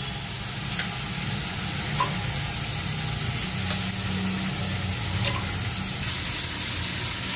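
Steady kitchen background hiss with a low hum, and a few faint light ticks, the clearest about two seconds in and another about five seconds in.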